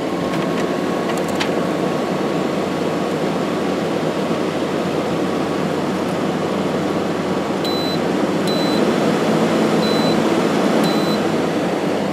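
A Midea 8,000 BTU window air conditioner's Welling fan motor runs in fan-only mode on low speed with the compressor off, a steady, fairly loud rush of air. In the second half the control panel beeps four times, short and high.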